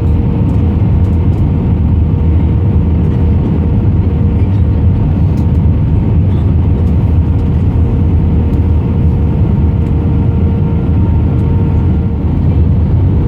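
Airbus A319 passenger cabin noise: a steady, loud rumble of the jet engines and airflow, with a constant hum running through it.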